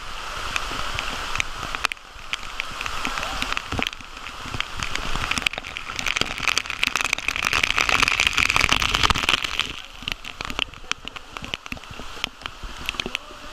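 Artificial rain pouring down onto water, with many close drops spattering; it grows heaviest around the middle and eases off toward the end.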